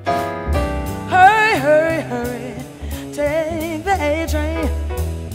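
Jazz song recording: a woman singing long held notes with wide vibrato, entering about a second in, over bass and drums with cymbals.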